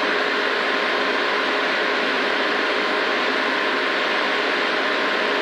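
Rally car at speed heard from inside its cabin: a steady drone of engine, wind and tyre noise, the engine holding constant revs.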